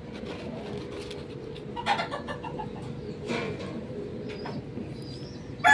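Chickens clucking, with two short calls about two and three seconds in, over a steady hum. A rooster starts crowing right at the end.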